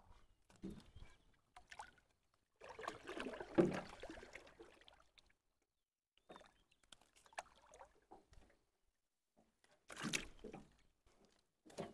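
Faint, irregular splashing and dripping of water as a fishing net with a tangled fish is worked in a stream. The longest splash comes about three seconds in and a shorter one near ten seconds, with small clicks and drips between.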